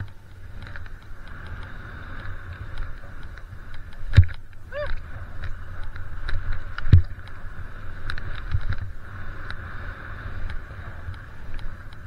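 Wide freeride skis sliding through deep powder snow, with wind rushing over the camera microphone. Two heavy thumps come about four and seven seconds in.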